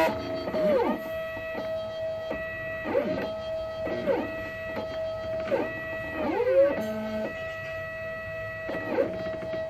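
Stepper motors of a homemade mini CNC pen plotter whining at one steady pitch as the machine moves. The pitch slides down and back up several times as moves stop and start.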